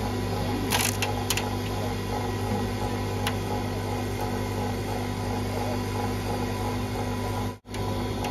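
Cotton candy machine's motor running with a steady hum as the spinner head throws out floss, with a few light clicks about a second in. The sound drops out for an instant near the end.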